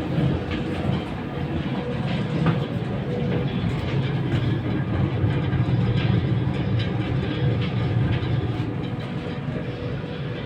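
Air handling unit blower running with a steady low rumble and irregular clicks and rattles throughout: the abnormal sound of the blower's drive-end bearing.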